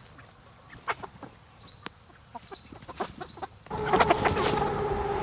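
Flock of laying hens clucking, scattered short clucks at first, then a louder, busier stretch from nearly four seconds in with a steady held tone running under it.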